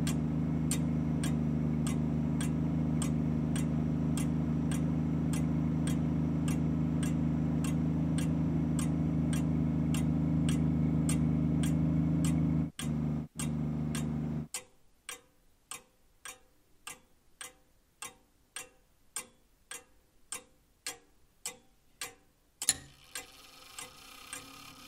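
Regular ticking, a little under two ticks a second, over a steady low hum. The hum cuts out twice briefly about 13 seconds in and then stops about a second later, leaving the ticks alone; one sharper click comes near the end.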